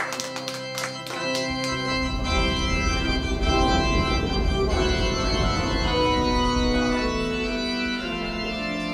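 Wedding recessional music with long held chords, starting right after the couple is pronounced husband and wife. Scattered applause dies away in the first second or two, as a deep bass comes in under the chords.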